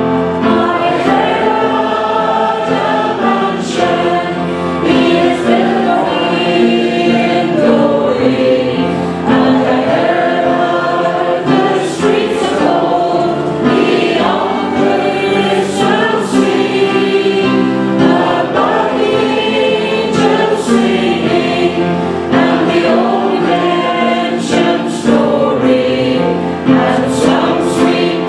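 Congregation singing a hymn together with keyboard accompaniment.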